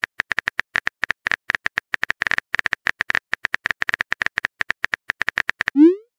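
Phone keyboard typing clicks from a texting app, a quick irregular run of ticks as a message is typed out letter by letter. Near the end a short rising swoosh sounds as the message is sent.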